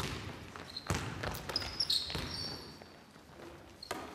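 A basketball bouncing a few times on a wooden gym floor, with short high sneaker squeaks about two seconds in.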